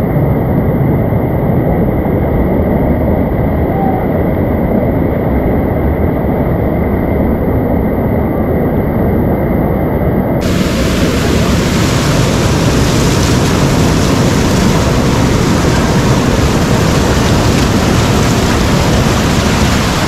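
Loud, steady rushing of a monsoon-fed waterfall in full flow. About halfway through the sound abruptly turns brighter and hissier.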